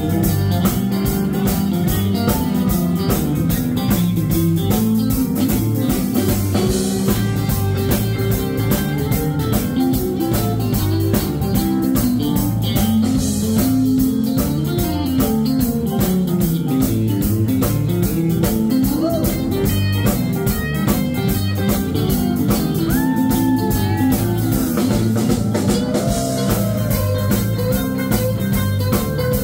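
Live blues band playing an instrumental passage: electric guitars over a drum kit with steady cymbals, the lead guitar bending notes in the second half.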